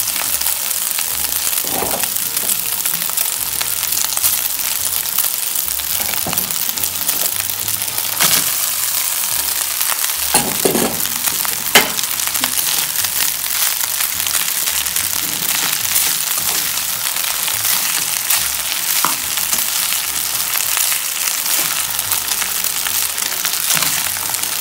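Chicken, vegetables and cooked rice sizzling steadily in a hot oiled nonstick pan while a metal spatula stirs and scrapes them, with a few sharp knocks of the spatula on the pan, the loudest about twelve seconds in.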